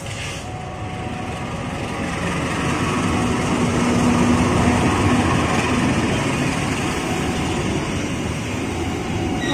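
GE CC 206 diesel-electric locomotive hauling a freight train of flatcars through the station without stopping: engine running and wheels rumbling on the rails. It grows louder as it comes past and is loudest about four to five seconds in.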